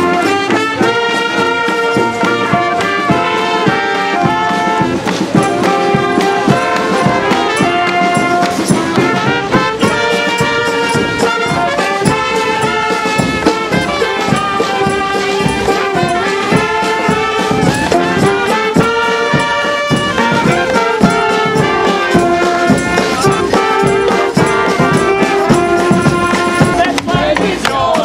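Brass band music: horns playing a tune in held notes over a steady beat.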